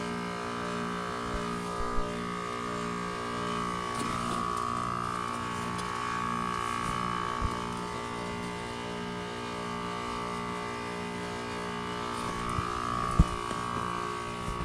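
Heat pump outdoor units running in the cold: a steady compressor-and-fan hum made of several fixed tones, with a slow pulsing beat a little more than once a second and a few light clicks.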